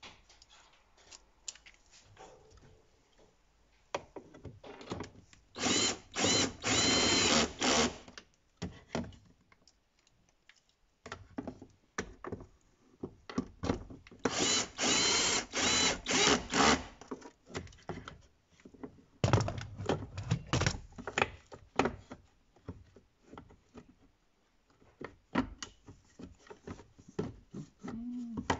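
Cordless drill driving screws into a car's plastic door trim panel in two runs of about two seconds each, the first about six seconds in and the second about fourteen seconds in. Between and after them come short plastic clicks and knocks from the panel being handled.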